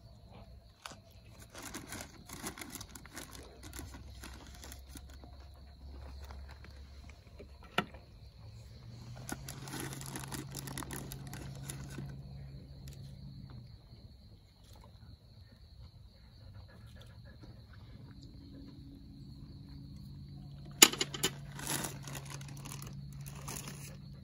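Intermittent rustling and scraping handling noises in several stretches, with one sharp click about three-quarters of the way through, over a steady high insect drone.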